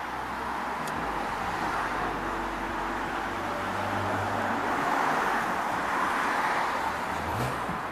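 DB Class 426 electric multiple unit moving slowly on the station tracks: a steady rumble of wheels and running gear with a low motor hum, growing a little louder in the middle.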